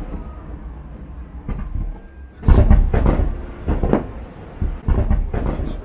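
Aerial fireworks shells bursting: a series of deep booms, the loudest about two and a half seconds in, followed by several more close together over the next three seconds.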